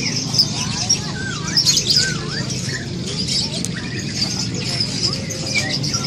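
Many caged songbirds chirping and calling at once, with a few looping whistles about a second and a half in, over a steady low hum.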